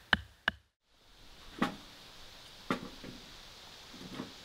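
A wooden stick striking the back of a hatchet head twice in quick succession, batoning a piece of firewood, each blow a sharp knock with a short ring. After a break, three softer, duller knocks follow, about a second apart.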